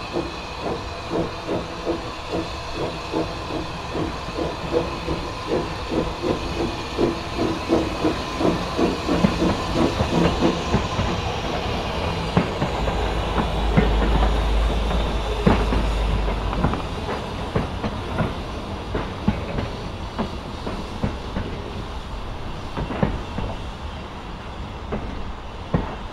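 Manning Wardle saddle-tank steam locomotive working a freight train past at low speed: even exhaust chuffs over hissing steam, then the wagons rolling by with a low rumble and clicks over the rail joints.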